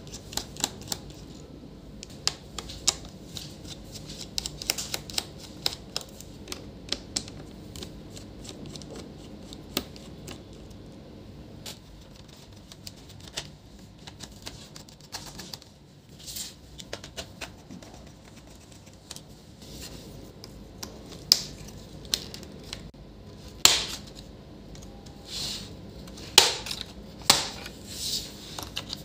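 Small clicks and ticks of a precision screwdriver turning out the screws in the plastic bottom case of an Acer Aspire 3 laptop. Near the end come several louder, sharp snaps as the bottom cover's plastic clips are pried loose.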